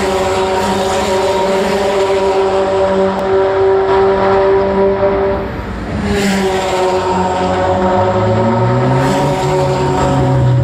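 Race car engines running at high revs as cars pass on the circuit, with a steady, loud engine note. About eight seconds in, a lower engine note rises in pitch as a car accelerates.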